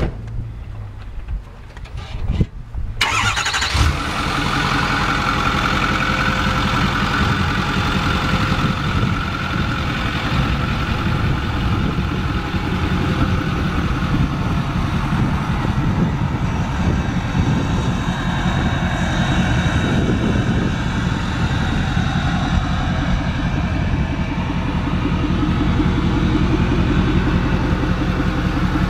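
Ford 6.4L Power Stroke V8 turbodiesel in a 2008 F-350 starting about three seconds in, then idling steadily through a 5-inch downpipe-back exhaust with the DPF and catalytic converter deleted.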